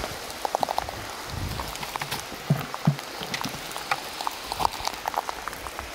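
Steady patter of rain dripping on leaves and the forest floor, with a few soft thumps and rustles as a tarp is spread out and gear set down on it.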